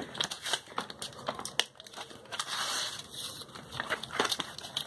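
Plastic blister and cardboard backing of a Pokémon card triple pack crinkling and crackling as it is pulled open by hand, with a few sharp cracks along the way.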